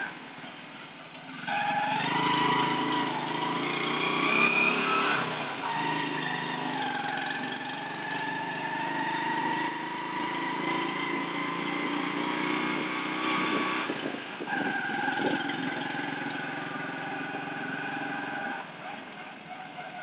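Motorcycle engine of a becak mesin, a motorcycle-drawn sidecar rickshaw, running under way, heard from inside the sidecar cab. The engine note rises and falls as it speeds up and changes gear, picking up sharply about a second and a half in and easing off near the end.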